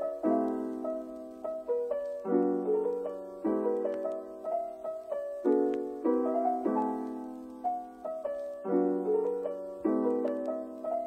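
Background music: a soft piano playing gentle, slowly changing chords that fade after each strike.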